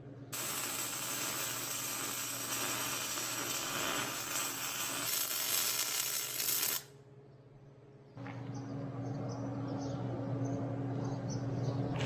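MIG (wire-feed) welding arc crackling steadily as a steel cap is welded onto the top of a steel pipe post. The arc stops about seven seconds in, and a low steady hum follows for the last few seconds.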